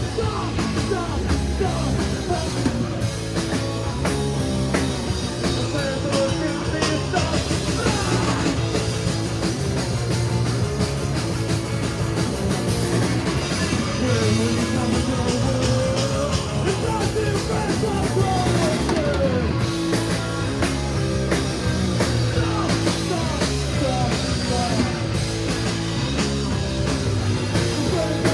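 A rock band playing live and loud, with a drum kit and pitched lines bending up and down through the song, dense and steady with no breaks.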